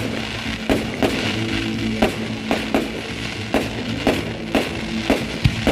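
Music with a steady drum beat of about two beats a second and held notes, with firework bangs mixed in.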